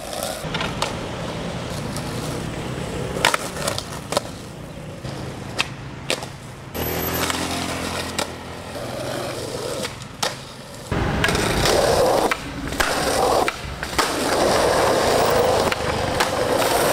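Skateboarding on a concrete street: urethane wheels rolling and the board scraping along a painted concrete curb. Several sharp pops and clacks come from ollies, flip tricks and landings. The rolling gets louder and steadier about 11 seconds in.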